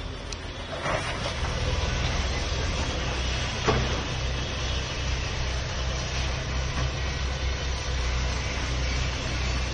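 Heavy diesel demolition machinery running with a steady low rumble, and one sharp knock about a third of the way in.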